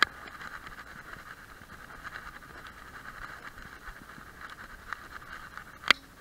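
Handling noise from a GoPro camera riding on a walking dog's back: a steady hiss with scattered light clicks, a sharp knock at the start and a louder one near the end.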